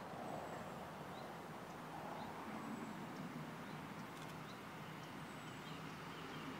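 Faint, steady low hum of an approaching Irish Rail Class 29000 diesel multiple unit crawling slowly, as it waits for a signal. A small bird gives short high chirps every couple of seconds over it.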